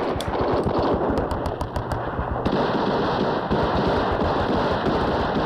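Heavy automatic small-arms fire: rapid machine-gun and rifle shots overlapping in a continuous battle din with no break.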